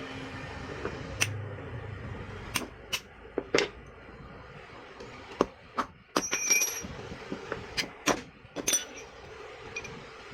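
Metal parts and tools of a table fan rotor being handled while its shaft is worked out: a series of sharp, irregular taps and clinks, two of them ringing briefly like struck metal.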